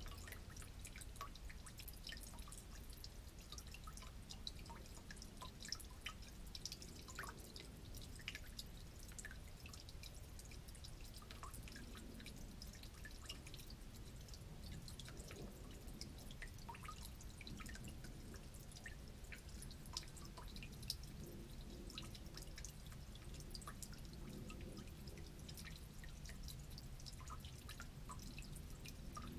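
Old gasoline dripping from a broken valve on an old generator into a drain pan of fuel: a faint, irregular patter of drips, several a second, with an occasional louder one.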